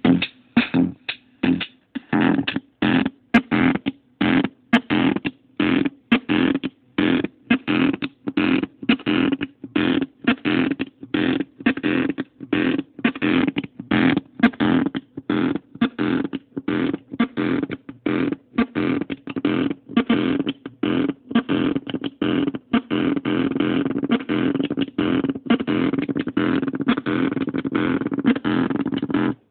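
Korg Monotribe drum pattern played through a circuit-bent Yamaha computer speaker, distorted and crunchy: a fast, even run of bass-drum hits over a steady low synth tone. In the last third the hits run together into a denser, more continuous distorted sound as the speaker's side knob is turned.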